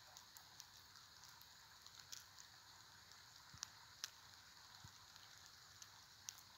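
Near silence: faint scattered soft ticks of wet snow falling, over a quiet hiss.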